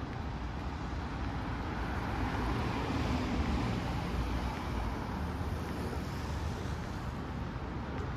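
City street traffic: a steady low rumble of passing cars, with one swelling past about two to four seconds in.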